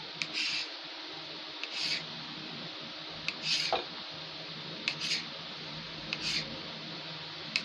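Kitchen knife cutting a rope of dough into pieces on a floured work surface. Each cut is a sharp click of the blade on the surface followed by a short scrape, about six in all, roughly one every second and a half.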